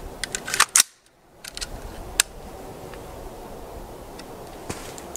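Sharp metallic clicks and clacks from handling an AR-15 rifle: a quick cluster in the first second, a few more around two seconds in, and a single click near the end.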